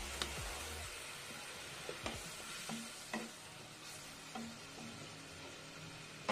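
Watery curry gravy simmering and sizzling in a kadai while a wooden spatula stirs the potato slices, with a few light knocks and scrapes of the spatula against the pan.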